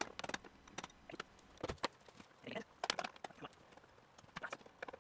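Scattered light clicks and taps of small metal fittings and a hand tool being handled and worked at irregular intervals.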